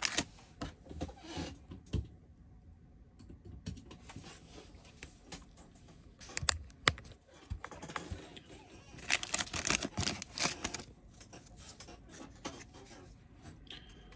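Foil trading-card booster pack wrapper crinkling and a stack of cards being handled: faint scattered clicks, taps and rustles, with a few louder rustles about nine to eleven seconds in.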